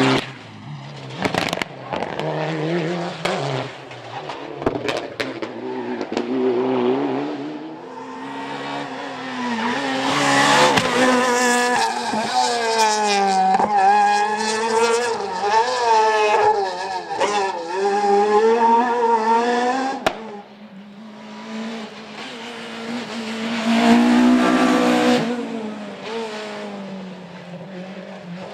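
Rally car engines revving hard on a tarmac stage. The pitch climbs and drops again and again with gear changes and corners. It is loudest for a long stretch in the middle and rises once more shortly before the end.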